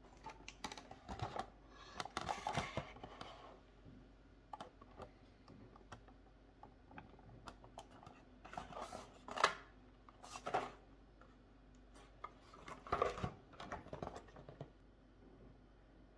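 Cardboard packaging being handled: irregular bursts of rustling and scraping with light clicks and knocks as a boxed fly reel is picked up and turned in the hands, the sharpest knock a little past halfway.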